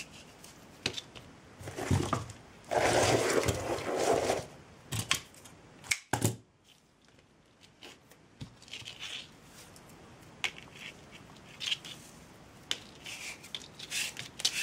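Hands working craft materials: rustling and crinkling, with a louder crackling stretch about three seconds in and a few sharp clicks and snaps.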